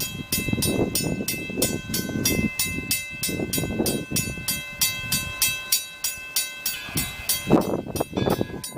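Steam train passing: a rapid, even clicking about five times a second, with steady high ringing tones over it and a few heavier low surges near the end.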